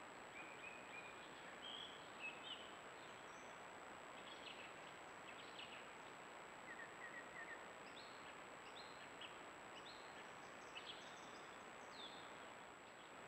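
Steady hiss with a thin high whine from a trail camera's microphone, with faint, scattered short chirps and whistles throughout, some in quick runs of three or four.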